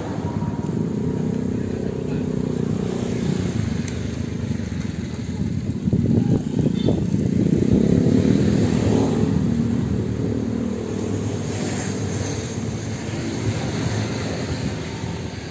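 A motor vehicle engine running with a steady low rumble that grows louder for a few seconds in the middle, then eases off.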